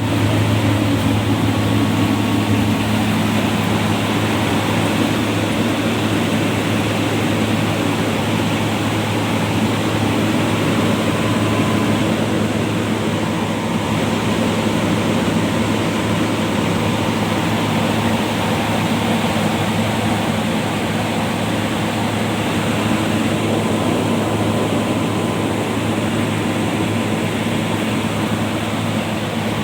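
Paddy dryer's blower running steadily during a test run, a loud constant drone with a low hum underneath.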